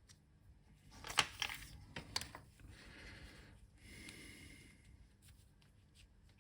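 Hands working small computer parts and a connector plug: a quick run of sharp clicks and knocks about a second in, then two soft rustles.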